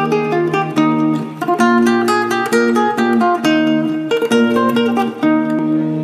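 Instrumental music on plucked strings: quick picked notes of a melody over sustained lower notes.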